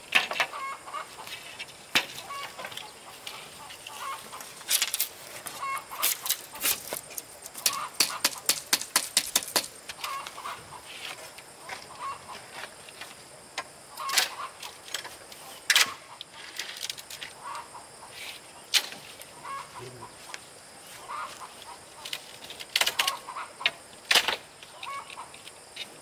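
Chickens clucking, with many sharp knocks and clicks in quick clusters, thickest in the first half.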